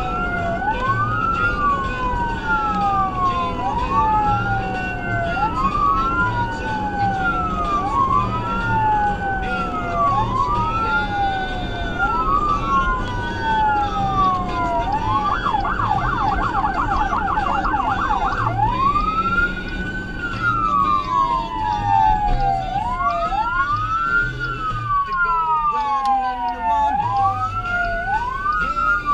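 SoundOff Signal nErgy 400 200-watt electronic siren through 100J composite speakers, sounding a wail that rises and falls about every second and a half. For about three seconds past the middle it switches to a fast yelp of about four sweeps a second, then goes back to the wail. It is heard from inside the responding vehicle's cab.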